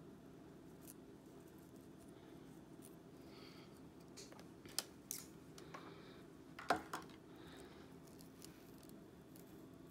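A few short clicks and scrapes of a pick tool and rat-tail comb being worked against the scalp and handled, with faint scratching through the hair. The loudest click comes about two-thirds of the way in, with a smaller one just after. Under it runs a steady low room hum.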